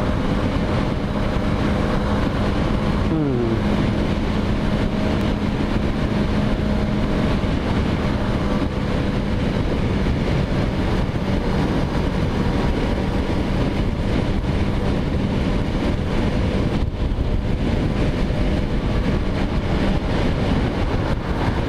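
Yamaha YZF-R3 321 cc parallel-twin engine running at steady cruising revs, mixed with rushing wind over the rider's microphone at highway speed. A brief falling tone comes about three seconds in.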